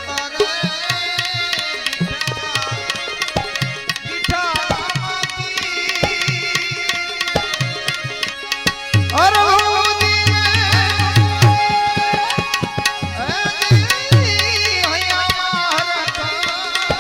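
Instrumental passage of Gujarati folk song music: tabla playing a busy rhythm under a bending melody line, with deeper drum strokes coming in a little past halfway.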